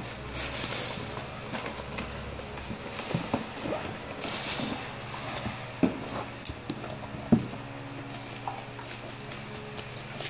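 Packaging being handled: plastic bubble wrap crinkling and rustling, and cardboard boxes knocked and set down on a table, with a few sharp knocks, the loudest about six and seven seconds in.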